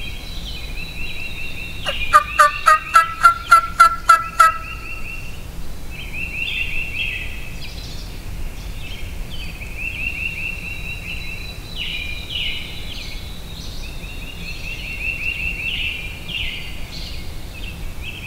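A wild turkey gobbler gobbles once, loud and close, about two seconds in: a rapid rattling run of about ten notes. A high thin trill repeats every second or two throughout.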